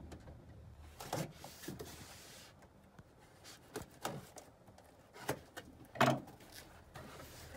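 Cardboard shipping box being handled and its taped flaps pulled open: a string of short scrapes, taps and rustles, the loudest about six seconds in.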